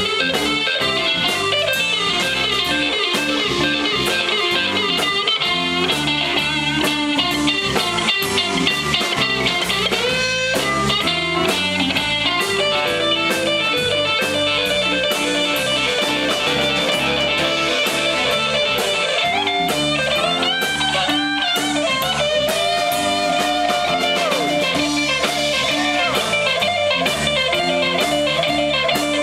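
Live electric blues-rock band playing an instrumental stretch: a Stratocaster-style electric guitar plays a lead line with bent notes over bass and drums.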